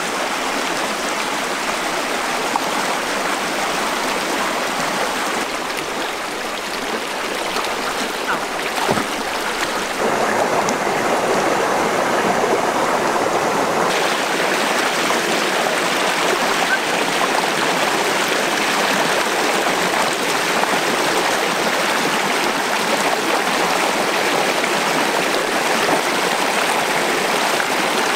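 Shallow mountain stream rushing over rocks, a steady rush of water that gets louder about ten seconds in.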